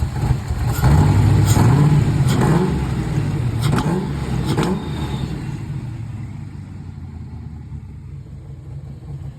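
Ford 331 stroker V8 with long-tube headers, an X-pipe and no mufflers, running with a couple of throttle blips about a second in, then dropping back to idle and getting quieter toward the end. It is idling a little better now that a vacuum leak and a loose PCV hose have been fixed. A few sharp clicks sound over the engine in the first half.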